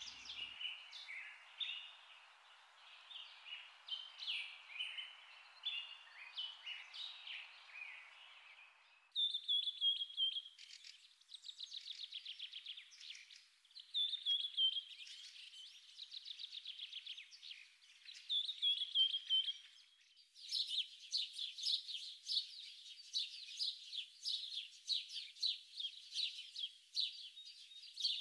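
Birds chirping and singing, with fast trills. The sound changes abruptly twice, about nine and twenty seconds in, and a steady hiss lies under the first part.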